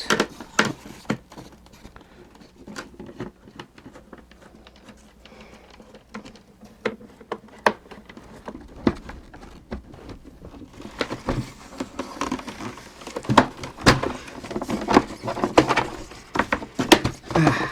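Screwdriver and hands working screws out of a plastic toy case: scattered small clicks, taps and rattles of plastic, sparse at first and busier and louder in the second half.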